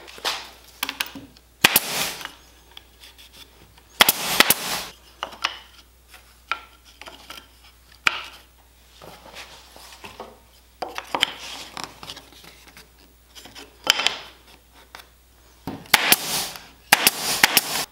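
Hitachi pneumatic nailer firing nails into a plywood strip: a series of sharp shots a few seconds apart, with a quick cluster of shots near the end, and light knocking of wood being handled between them.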